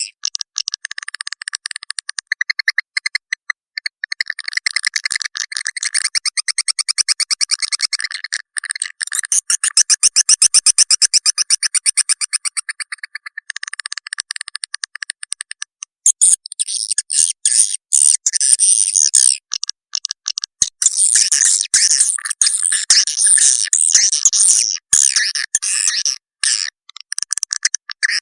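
Swiftlet lure call recording (suara panggil walet) played back to draw edible-nest swiftlets into a bird house: long trains of rapid, high-pitched chirps and clicks with short breaks between them, and no low end.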